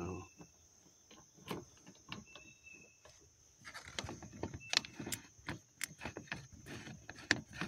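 Scattered small clicks, taps and scrapes of a metal strainer fitting being screwed onto a rain barrel's brass spigot by hand, sparse at first and busier from about halfway on. A steady high insect drone runs underneath.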